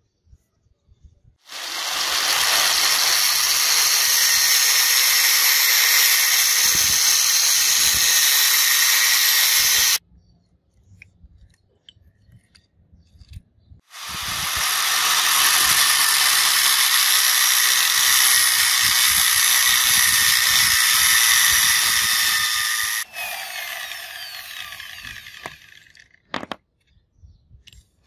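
Angle grinder with a thin cutting disc cutting into a steel bolt: two long, steady cuts of several seconds each with a short pause between, then the disc winding down near the end.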